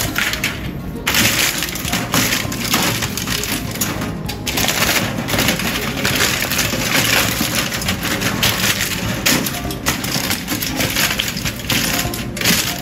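Sheet of aluminium foil crinkling and crackling as hands spread it, press it down and fold its edges over a baking tray, an irregular rustle that goes on throughout.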